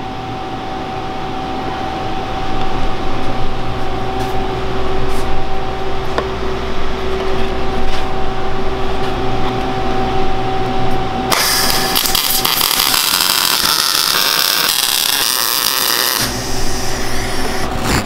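Steady shop hum with two steady tones. About eleven seconds in, a MIG welder's arc starts crackling and sizzling for about five seconds as a weld is run on the steel mini bike frame tubing, then stops suddenly.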